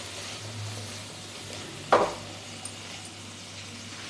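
Chopped vegetables sizzling gently in a nonstick wok as they are stirred with a silicone spatula, with one sharp clink against the pan about two seconds in.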